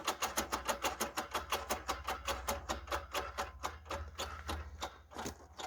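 Rear right wheel of a VAZ-21099 spinning freely and coasting down, with a rhythmic scraping tick once per turn from the brake that slows from about nine to about five a second and fades out near the end. The owner suspects the rear brake shoes are worn down to almost nothing, or that something such as a spring has come loose inside.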